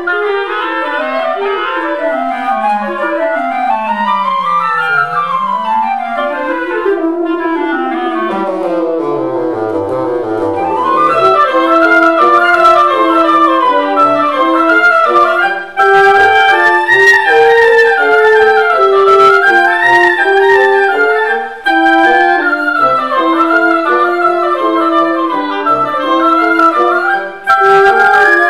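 Woodwind quintet of flute, oboe, clarinet, French horn and bassoon playing a classical chamber piece. For about ten seconds quick runs rise and fall against each other, then the full ensemble comes in louder with a busy melody, broken by short pauses a few times.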